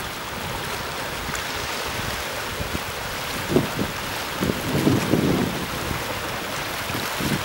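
Small sea waves washing over a rock shelf, a steady hiss of surf, with a few louder low buffets of wind on the microphone about three and a half seconds in and again around five seconds.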